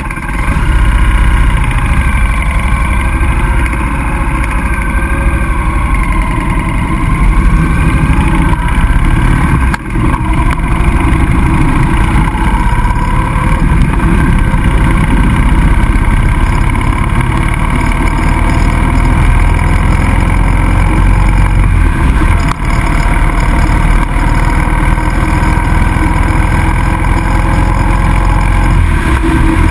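Motorcycle engine running under way, with wind noise on the bike-mounted camera's microphone; it gets louder right at the start, and the engine note shifts up and down, with two brief dips about ten and twenty-two seconds in.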